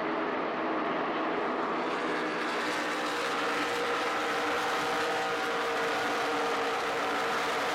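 NASCAR Sprint Cup stock cars' V8 engines at racing speed on the track, a steady, dense roar of several engines at once. The sound turns sharper and brighter from about two seconds in.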